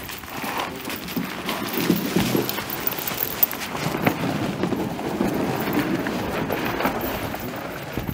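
Draft horse's hooves crunching through snow as it skids a log, with the scraping rumble of the log dragged over snow and forest floor.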